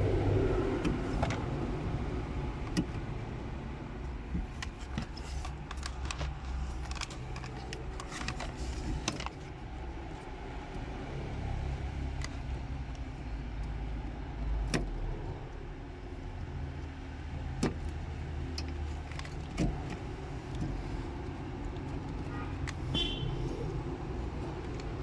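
Steady low rumble with scattered light clicks and knocks, typical of hands and tools working around a car's accelerator pedal under the dashboard.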